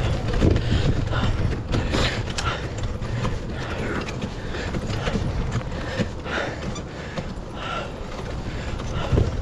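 Full-suspension mountain bike, a retro Mongoose Amplifier II, riding over a rough dirt trail: an irregular run of knocks, clicks and rattles from the bike over bumps, over a steady low rumble of tyres and wind on the microphone.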